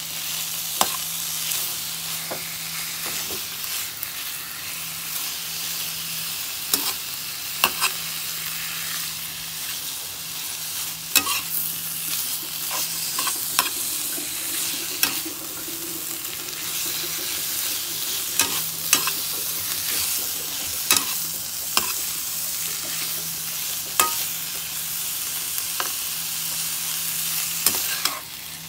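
Diced fatty pork sizzling as it fries in a nonstick pan. A metal spatula stirs it, scraping and clicking against the pan every second or few.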